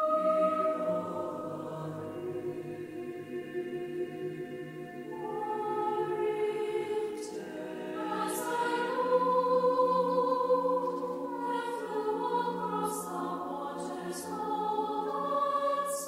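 Mixed college choir of men's and women's voices singing a slow, sustained unaccompanied part-song, the voices holding long chords. The sound softens a few seconds in and swells again near the middle.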